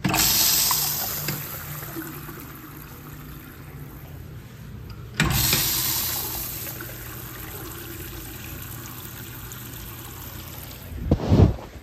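Kohler Steward Hybrid urinal flushing: a sudden rush of water that tapers off over a couple of seconds, then a second rush about five seconds in that fades the same way. Near the end, a short loud rumble from the phone being handled.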